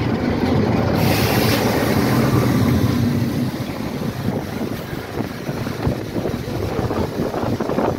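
Class 47 diesel locomotive's Sulzer engine running as the train moves off past the microphone, then fading as it pulls away. Wind buffets the microphone, with a gust about a second in.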